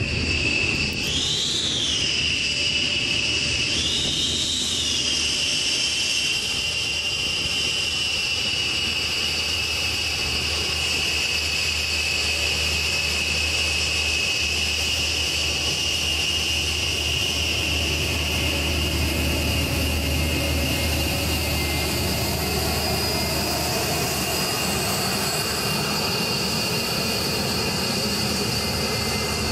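B-1B Lancer bomber's General Electric F101 turbofan jet engines running on the ground: a steady high-pitched whine over a low rumble. The whine briefly rises and falls twice in the first few seconds, then holds steady.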